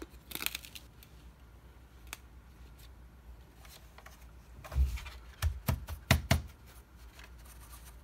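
Handling noises in a quiet room: a few clicks and rustles, then a cluster of dull thumps about five to six seconds in. No vacuum motor is running.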